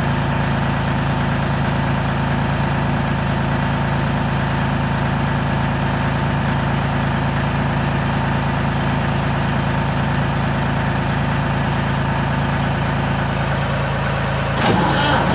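Diesel tractor engine running at a steady, even pitch, with a clunk near the end.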